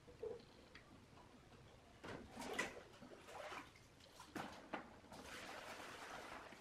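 Faint scattered clicks and scrapes of multimeter test probe tips on the component leads of an amplifier circuit board, with soft handling rustle near the end.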